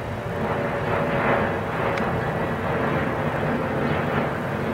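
Steady rumble and hiss of a distant vehicle, with a faint steady whine under it and a single short click about two seconds in.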